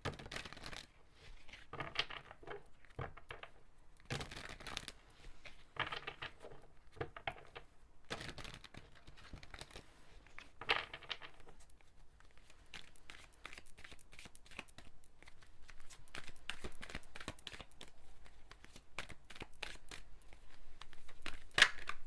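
A tarot deck being shuffled and handled by hand: a dense run of quick papery card flicks and slaps, with louder bursts every couple of seconds.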